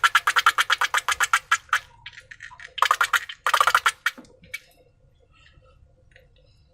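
Slime being worked by hand, giving a rapid, even run of wet clicks, about ten a second, that stops about two seconds in. Two short crackly bursts follow, then only faint ticks.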